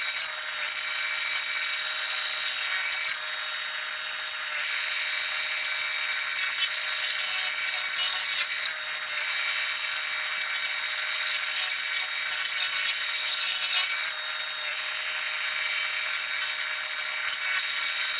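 Remote-controlled stump grinder running steadily, its cutter wheel grinding into a stump and its roots. The grinding note shifts every few seconds as the wheel bites and sweeps.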